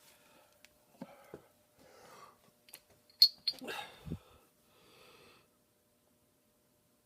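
Small metal lathe parts being handled at the bench: a few light knocks, then a sharp clink about three seconds in, followed by a short rustle and a dull thump.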